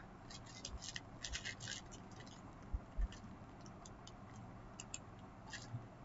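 Faint scratching and clicking noises, with two soft thumps about three seconds in.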